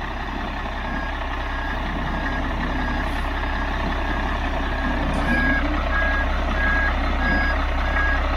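Concrete mixer truck reversing: its back-up alarm beeps steadily over the low run of its diesel engine, and the beeps grow louder about halfway through as the truck comes closer.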